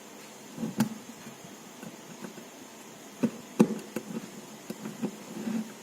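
Handling noise from a small diecast excavator model: scattered sharp clicks and knocks of metal and plastic parts, several of them close together in the second half, the loudest about three and a half seconds in.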